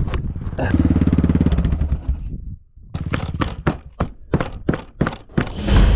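Dirt bike engine running, then cutting out about two seconds in as the bike goes over the edge of the track and stalls. A run of irregular knocks and thuds follows as the bike and rider fall over in the brush.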